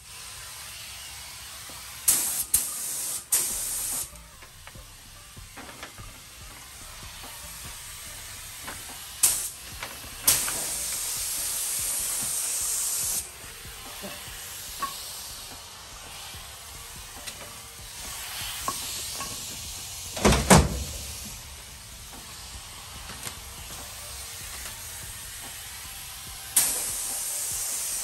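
Iwata gravity-feed paint spray gun hissing with compressed air as it sprays silver base coat, triggered in short bursts a few seconds in, a longer pass of about three seconds, and another pass starting near the end. A single loud thump comes about two-thirds of the way through.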